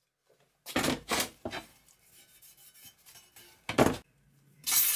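A steel plate and a metal ruler being handled and slid on a rubber-matted workbench while the plate is marked out. There are about five short scrapes and rubs: two close together about a second in, another soon after, one just before the fourth second and one near the end.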